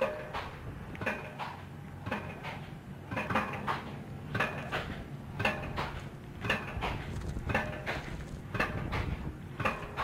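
Pile hammer driving steel piles: sharp metallic clanging strikes about once a second, evenly paced, over a low rumble.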